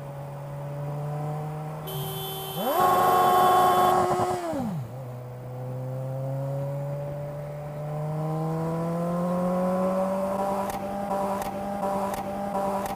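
A vehicle engine running. It revs sharply about two and a half seconds in and falls back after a couple of seconds, then rises slowly and steadily in pitch as the vehicle accelerates.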